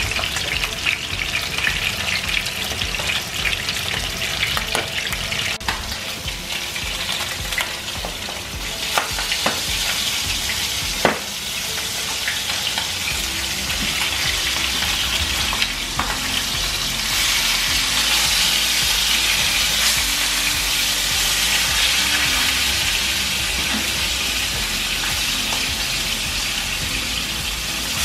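Pieces of bluefin tuna head sizzling as they fry in oil in a nonstick frying pan, the sizzle growing louder in the second half. A few sharp clicks come as wooden chopsticks turn the pieces against the pan.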